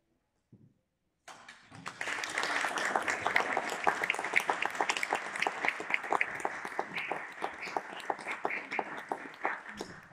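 A moment of near silence, then an audience bursts into applause about a second in, with many individual claps audible. The applause thins a little near the end.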